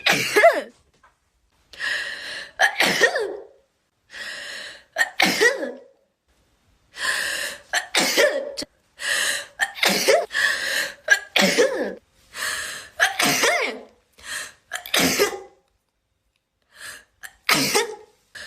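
A young woman sneezing over and over in an allergy fit: a long run of wet sneezes, one every second or two, with short silences between.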